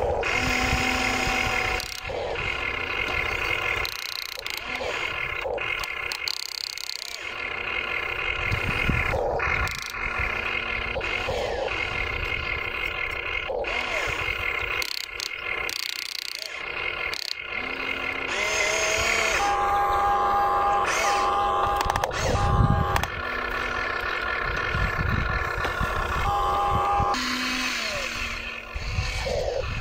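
Motors of an RC excavator whining in short runs that start, stop and change pitch as the boom, arm and bucket move, over a low rumble of the bucket working stony dirt. A louder low thump comes about two-thirds of the way through.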